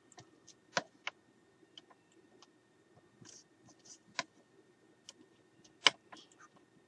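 A thin metal blade prying a 3D-printed ABS nose cone off the tape-covered build plate of a MakerBot Thing-O-Matic: a handful of sharp clicks and small taps, the loudest about six seconds in, over a faint steady hum.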